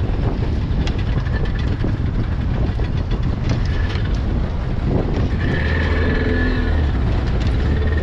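Fishing boat's engine running steadily, a deep hum with a faint higher whine coming in about halfway through.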